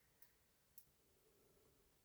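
Near silence, with two faint, short clicks from handling a smartwatch and its strap while working its release pin.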